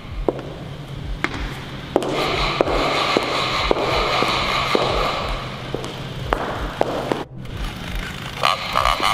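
Tense film-score drone with a low pulse about twice a second, over footsteps on a wooden floor. The sound drops out briefly near the end, then a faster, choppy rhythm starts.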